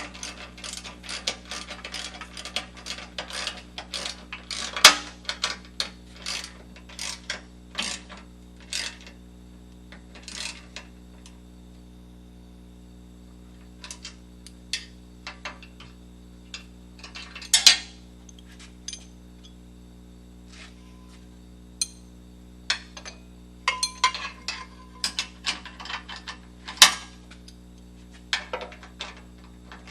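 A socket ratchet clicking in quick runs as 9/16 bolts on a skid-plate strut rod are tightened, with a few louder metallic knocks from the tools. The clicking is dense for the first several seconds, thins out mid-way, and picks up again near the end.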